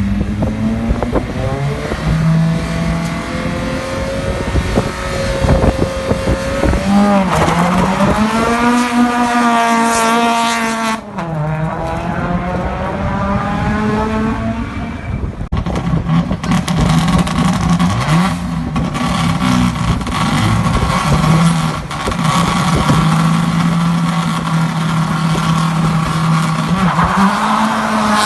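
Rally cars driven hard, their engines revving up and down through gear changes, the pitch climbing and dropping again and again. Sharp exhaust crackles and pops run through it. The sound breaks off abruptly about eleven seconds in and again around fifteen seconds.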